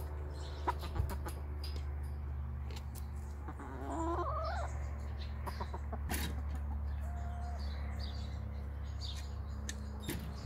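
Domestic hens clucking softly, with one drawn-out wavering call about four seconds in and a few light clicks, over a steady low background hum.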